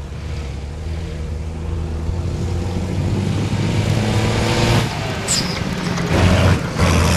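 Off-road rally truck's engine running hard as the truck approaches over sand, growing louder and surging as it passes close by near the end.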